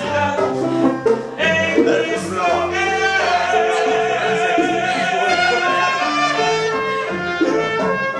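Latin American dance music with singing, including one long held note a few seconds in.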